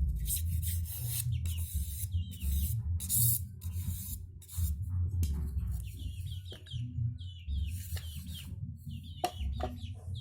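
Chickens clucking in short, repeated calls, mostly in the second half, over a low steady rumble. In the first half there are short bursts of harsh scraping noise.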